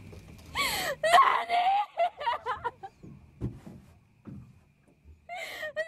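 High-pitched wordless shrieks in short bursts with gliding pitch, then two dull thuds in the middle, a quieter stretch, and the shrieking voices again near the end.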